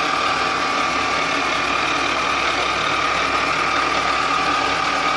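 Clausing Colchester 15 x 36 engine lathe running steadily under power feed, the slide traversing across; an even mechanical hum with a steady high gear whine.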